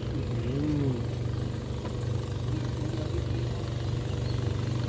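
An engine idling steadily at an even low pitch.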